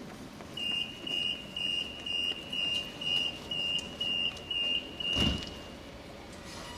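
Tram's door-closing warning: a run of about eleven short, high-pitched beeps, roughly two a second, the last one held longer. A thump comes about five seconds in, near the end of the beeping.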